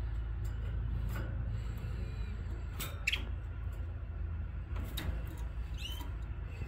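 Young canary fledglings in a cage giving a couple of short, high chirps, one of them rising, over a steady low rumble and a few light clicks.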